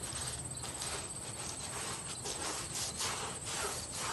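Paintbrush strokes swishing over a wooden stair tread, irregular and about every half second, over a steady high trill of insects.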